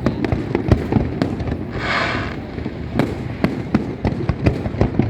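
Aerial fireworks bursting overhead: a rapid, irregular string of sharp bangs, with a brief hiss about two seconds in.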